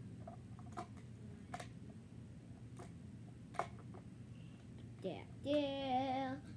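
Plastic building tiles clicking against each other four times as they are fitted onto a toy vehicle, then a child's voice holding one wavering note for about a second near the end.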